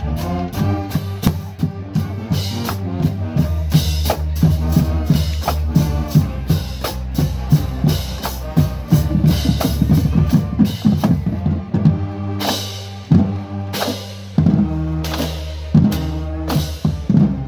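Marching band playing a stand tune in the bleachers: low brass bass line over bass drum and snare drum beats, with cymbal crashes from about twelve seconds in.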